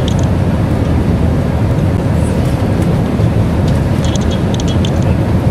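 Steady low rumble of an airliner cabin in flight, the noise of the engines and the air rushing past the fuselage. Light clicking or rattling comes twice, near the start and about four seconds in.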